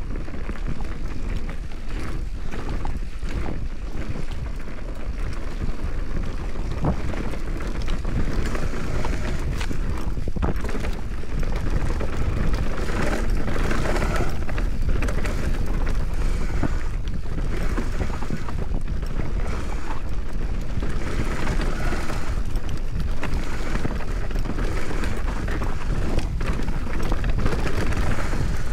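Mountain bike riding downhill on rough trail: wind buffets the camera microphone in a steady low rumble, over the noise of tyres on dirt and many short knocks and rattles from the bike.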